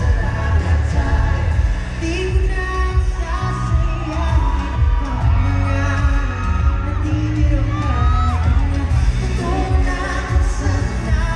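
Live pop song sung by a male vocal group over a loud backing track with a strong, heavy bass, played through a concert sound system.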